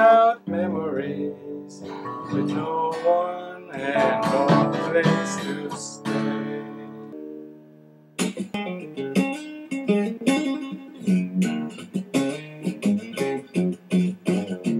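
Acoustic guitar music. A slow melodic passage fades away, and about eight seconds in a faster, rhythmic strummed passage starts.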